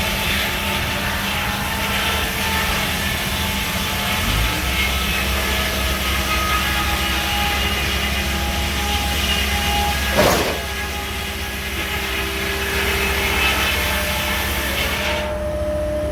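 Engine-driven circular sawmill running: a steady mechanical drone with a hum of held tones, its low tone changing about four seconds in. A brief loud rushing noise comes about ten seconds in.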